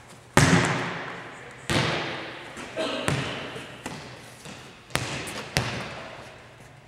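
A volleyball hit hard about a third of a second in, then further ball hits and bounces on the hardwood gym floor at irregular intervals, each impact echoing in the large hall.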